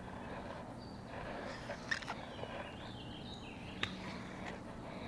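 Birds chirping faintly in the trees, with two sharp clicks, about two seconds in and again about four seconds in.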